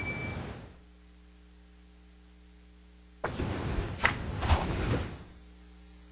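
Rustling and a few knocks picked up by the podium microphone for about two seconds, starting a little after three seconds in. Under them runs a faint, steady electrical hum from the sound system.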